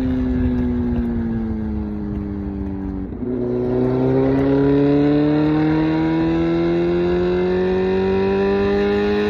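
Kawasaki Z900's 948cc inline-four running through an SC Project exhaust while riding. The revs fall for about three seconds as the throttle closes. Then the note picks up again and climbs steadily under gradual acceleration, with wind rumble underneath.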